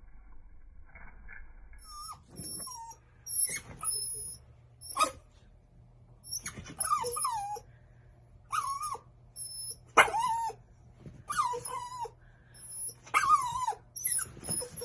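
A dog whining in a series of short whines that fall in pitch, starting about two seconds in, with a few sharp clicks between them.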